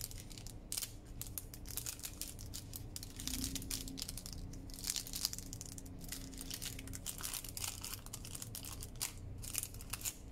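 Parchment paper baking cup crinkling and rustling as it is folded and pressed flat by hand, a steady run of irregular small crackles.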